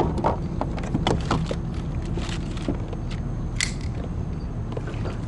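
Irregular clicks, creaks and rattles of fishing gear as a hooked bass is reeled in, over a steady low background rumble.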